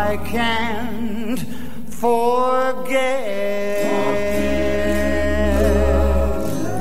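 1950s pop ballad recording near its close: sung voices without clear words over a backing band, moving through a few wavering notes, then a long held note from about three seconds in.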